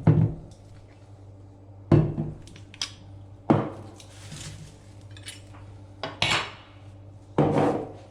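Pots, dishes and cutlery being handled and set down, with several separate clanks, each ringing briefly.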